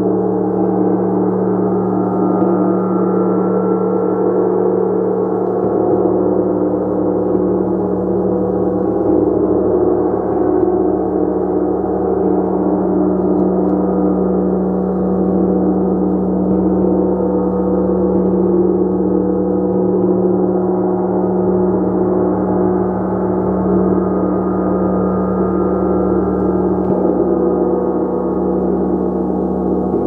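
A gong played in a continuous, sustained wash: many overlapping ringing tones held at an even loudness over a deep steady hum.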